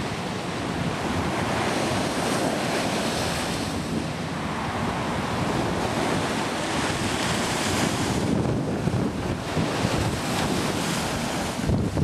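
Sea waves washing in over the shore, swelling and easing every few seconds, with wind rumbling on the microphone.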